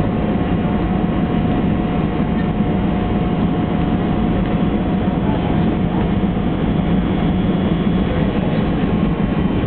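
Steady, loud background din of a large indoor arena: even noise weighted to the low end with a faint constant hum and no distinct events.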